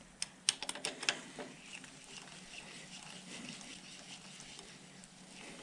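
Several sharp, irregular metal clicks in the first second and a half as a socket wrench is worked on the main bearing cap bolts of a Fordson Major engine block, followed by faint handling noise.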